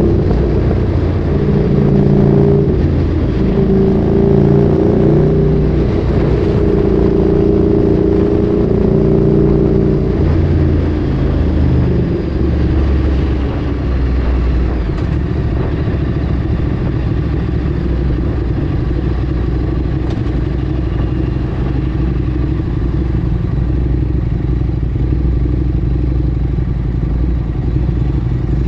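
Ducati Streetfighter 848's L-twin engine through a Termignoni exhaust, with its note stepping up and down in pitch as it revs and changes gear through the first ten seconds or so. It then settles to a steadier, lower running note for the rest.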